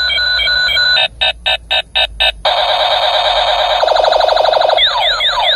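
A battery-powered light-up toy space gun playing its electronic firing sound effects. A beeping pattern gives way about a second in to a quick stutter of about six pulses, then a steady buzz, a fast warble, and quick falling zaps near the end.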